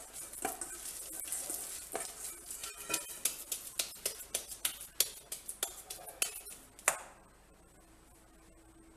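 Hands kneading soft wheat-flour dough in a stainless steel bowl: irregular slaps, squelches and knocks of the dough and hands against the steel, stopping about seven seconds in.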